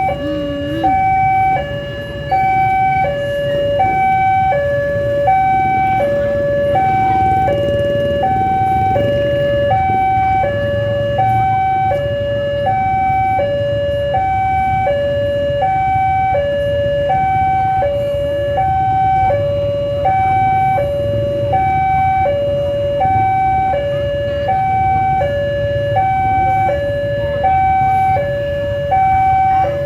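Railway level crossing warning alarm sounding steadily: an electronic two-tone signal alternating high and low, each tone about two-thirds of a second, over a steady low rumble.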